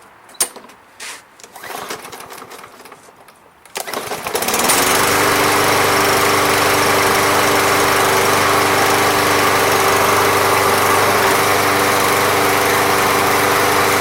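Briggs & Stratton lawn mower engine, after a few knocks and clicks, catching on a pull about four seconds in and then running steadily at full speed. The mower had not run before a Seafoam treatment, and the engine now runs strongly.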